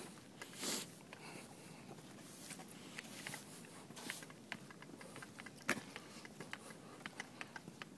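Footsteps on a cleared sidewalk: scattered small clicks and ticks, with one sharper click a little before six seconds in and a few soft rushes of noise near one second and four seconds in.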